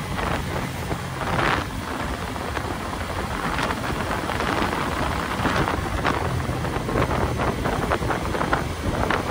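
Motorcycle engine running at a steady cruise of about 80 km/h, heard under heavy wind noise on the microphone.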